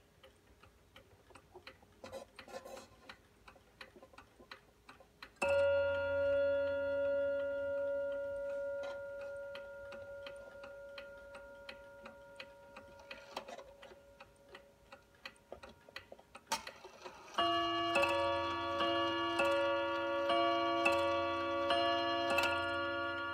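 Sessions 8-day bim-bam tambour mantel clock ticking while its hands are turned. About five seconds in, a single strike rings and slowly fades: the half-hour strike. From about seventeen seconds in, it strikes the hour in a run of alternating two-note bim-bam strikes that keep ringing.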